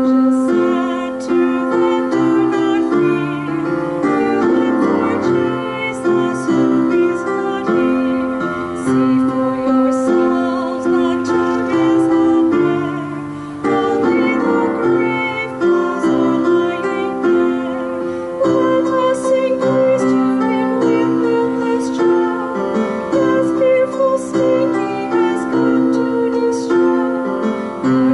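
Slow instrumental keyboard music, held piano-like chords changing about once a second.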